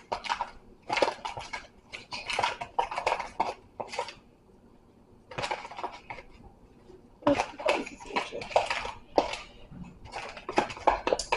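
Spoon stirring cornbread batter in a bowl: irregular clinks and scrapes against the bowl, in bursts, with a short pause about four seconds in.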